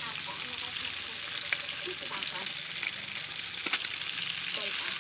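Tilapia frying in hot oil, a steady sizzle with a few short sharp clicks.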